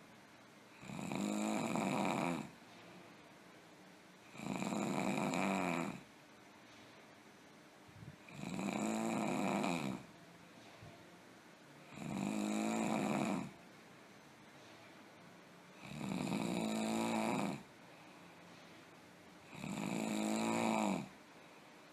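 A person snoring very badly, in a steady rhythm: six long snores come about every four seconds, each lasting about a second and a half, with quiet gaps between.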